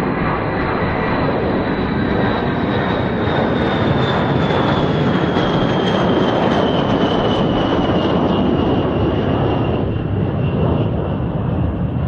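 A B-52 bomber's eight jet engines at takeoff power as it climbs out just after takeoff: a loud, steady rush with a high whine that falls slowly in pitch as the aircraft moves away.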